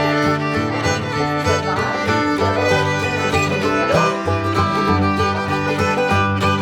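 Upbeat instrumental background music led by a fiddle over plucked strings, in a bluegrass-like style.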